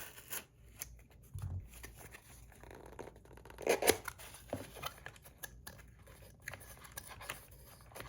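Packaging being opened by hand: scattered rustling, tearing and small clicks as the box and wrapping around a fidget spinner are pulled apart, with a louder tearing rustle about four seconds in.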